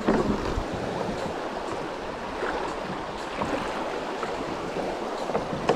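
Shallow river water running over stones and gravel, with a few short splashes and knocks as someone steps into the shallows to walk a stranded kayak through.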